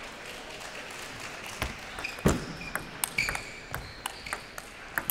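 Table tennis rally: the ball clicking off paddles and table in quick succession, starting about a second and a half in. Short high squeaks come among the hits.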